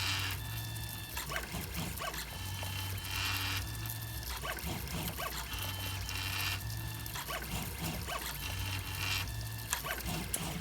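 A 3D printer's stepper motors whining through their print moves, with a pattern of steady tones and a short hiss that repeats about every three seconds. The printer has just been set to a raised print speed.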